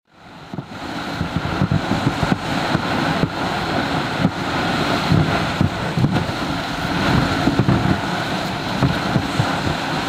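Wind buffeting the microphone, together with the steady hiss and irregular knocks of a sled dragged over hard, wind-packed snow. The sound fades in over the first second.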